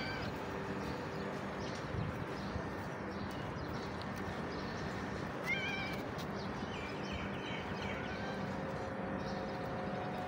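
Cat meowing in short calls, once right at the start and again about five and a half seconds in, the second louder, with a few fainter calls after it.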